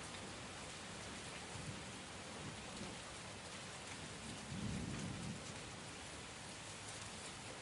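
Steady rain falling, a dense even hiss with scattered drop patter, and a brief low rumble about two-thirds of the way through.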